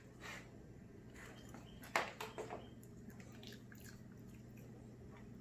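Small dogs moving about and nosing at a wooden floor: a few soft clicks and taps, the sharpest about two seconds in, over quiet room tone with a steady low hum.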